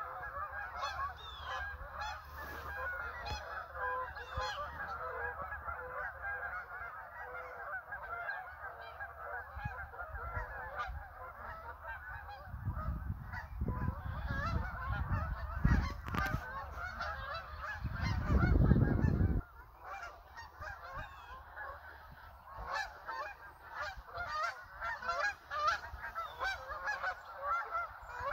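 A large flock of Canada geese honking as they fly over, a dense chorus of many overlapping calls without a break. Around the middle, low rumbling bumps hit the microphone, the loudest ending abruptly about two-thirds of the way through.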